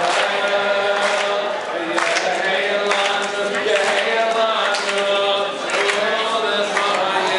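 A congregation singing a chant-like song together, led by a man singing into a microphone.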